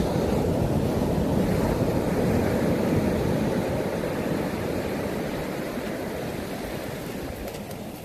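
Ocean surf washing up the beach: the foamy wash rushes in, swelling over the first few seconds, then slowly eases off. Wind rumbles on the microphone.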